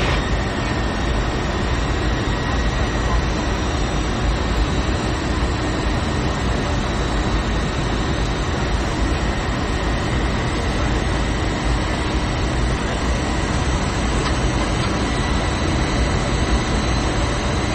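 Steady drone of an airliner in flight, heard from inside the passenger cabin: an even, unchanging engine and air rush.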